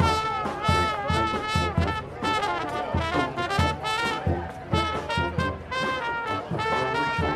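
A brass marching band playing, with trumpets and trombones carrying a tune over a steady beat.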